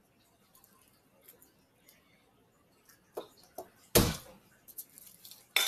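Kitchen knife working garlic cloves on a cutting board: a few light clicks, then a sharp knock about four seconds in and another near the end.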